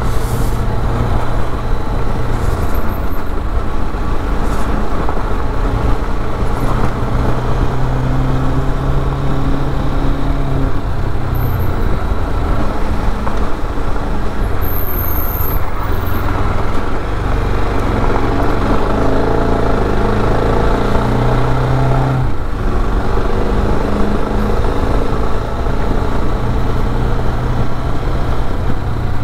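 Motorcycle engine running under way, with wind rumbling on the microphone. The engine note shifts with the throttle, easing about a third of the way in and dipping briefly about two-thirds in.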